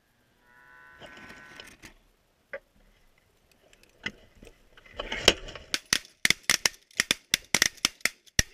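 Goose calls for about a second, then from about four seconds in a rapid volley of shotgun blasts from several guns, well over a dozen shots in about four seconds: hunters firing on geese coming into the decoys.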